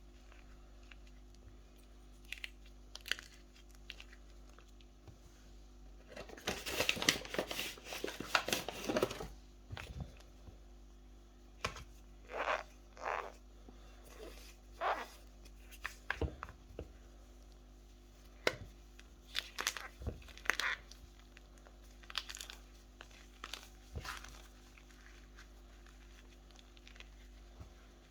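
Sports chalk being crushed and crumbled: a dense run of crunching about six seconds in, then scattered short crunches and sharp clicks.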